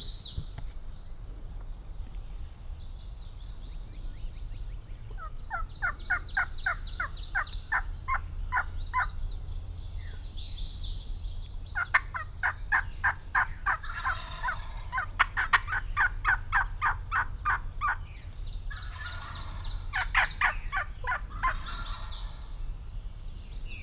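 Wild turkeys calling in three long runs of rapid, evenly spaced notes, about four a second: one about five seconds in, the longest from about twelve to eighteen seconds in, and a shorter one near twenty seconds. Songbirds sing high, thin phrases over them.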